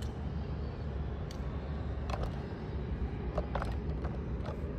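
Freight train rolling past with a steady low rumble, and scattered sharp clicks and knocks from about two seconds in.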